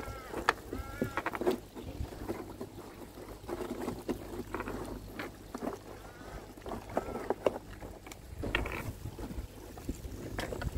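Filter floss being pushed and stuffed by hand into a Bakki shower filter tray: rustling and scraping with scattered knocks and a few short squeaks, over a steady low hum.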